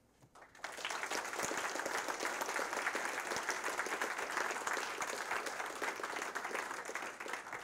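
Audience applause, many people clapping at once; it starts about half a second in and tapers off near the end.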